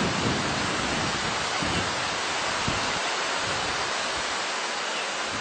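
Steady rushing of water, an even hiss with a deep rumble underneath that thins out after about three seconds.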